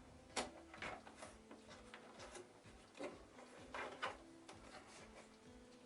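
Faint scattered clicks and plastic rattles as wire terminal connectors are pulled off a vacuum cleaner's control board and the board is lifted out.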